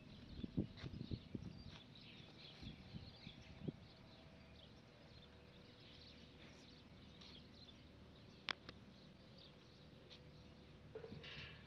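Quiet outdoor background with faint bird chirps and a few soft ticks in the first seconds, and one sharp click about eight and a half seconds in.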